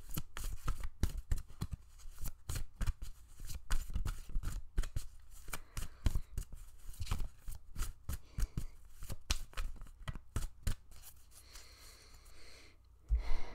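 A deck of oracle cards being shuffled by hand: rapid, irregular snapping and flicking of cards for about eleven seconds, then softer handling and a single thump near the end.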